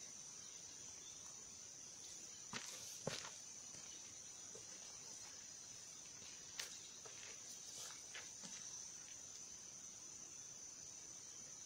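Faint, steady high-pitched chirring of insects, with a few short steps or rustles in grass at about two and a half, three and six and a half seconds, and softer ones after.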